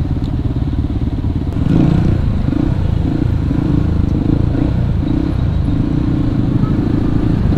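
Yamaha WR155R single-cylinder motorcycle engine running at low revs in slow, jammed traffic. It is picked up by a helmet-mounted mic, with the engines of the surrounding traffic mixed in. From about a second and a half in it grows a little louder and more uneven as the throttle is worked.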